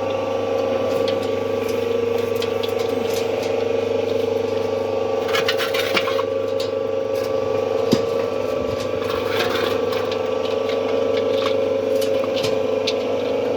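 Five-inch soap plodder running with a steady motor and gearbox hum, broken by a few short scraping bursts and a single sharp knock about eight seconds in.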